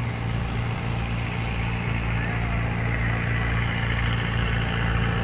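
Boat engine running steadily with a low, even hum, over a rush of wind and choppy water.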